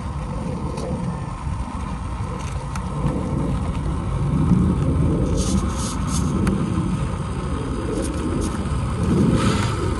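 Hobby Plus CR18-P EVO Pro small-scale RC rock crawler's electric motor and gears whirring as it crawls slowly up a boulder, with brief scrapes of its tyres on the rock around the middle and near the end. A low rumble of wind on the microphone runs underneath.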